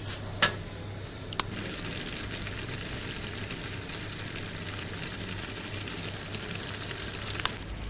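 Grated apples and sugar sizzling and bubbling in a frying pan as they cook and release their juice, a steady hiss. A few sharp knocks in the first second or so, the loudest about half a second in, and one more near the end.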